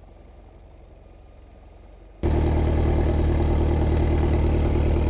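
Piper Cherokee's engine idling, heard at first only as a faint low hum. About two seconds in it suddenly comes in loud and steady as the headset microphone opens.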